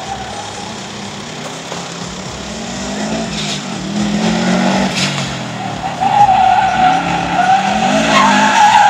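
Subaru Impreza STI's turbocharged boxer four-cylinder revving hard, its pitch climbing and dropping repeatedly through gear changes, and growing louder as the car approaches. Tyres squeal through a slide from about six seconds in, with a few sharp cracks along the way.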